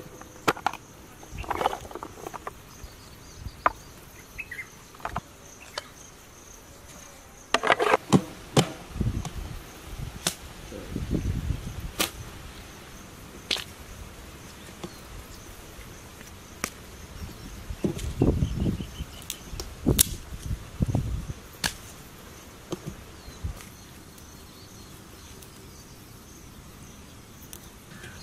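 Outdoor ambience with a steady high insect buzz, broken by rustling, sharp snaps and dull knocks as dry sticks and firewood are gathered and a large cooking pot is set on an open wood-fire hearth.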